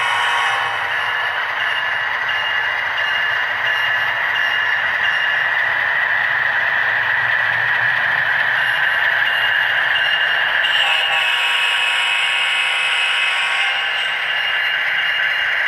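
HO-scale model freight train rolling past on its track: a steady rattle of wheels over the rails with a steady whine through it, whose tone shifts about eleven seconds in.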